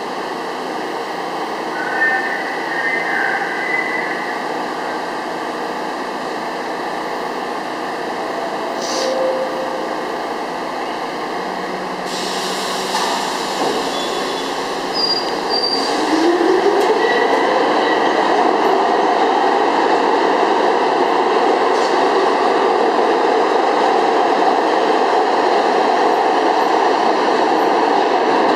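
R62 subway train standing at the platform, then pulling out about halfway through: a hiss, then its DC traction motors whine up in pitch and the wheel and motor noise grows loud as it accelerates away.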